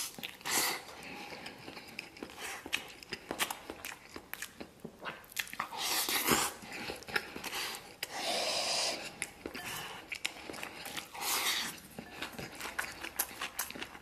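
A man biting into a braised egg and chewing it with rice: wet mouth and chewing sounds in short bursts, with light clicks of chopsticks against a ceramic bowl.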